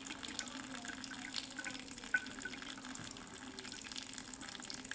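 Thin streams of water running and splashing steadily, with many small drips: a jet spurting from a hole near the base of a water-filled plastic bottle onto a stone countertop, and a tap running into a sink.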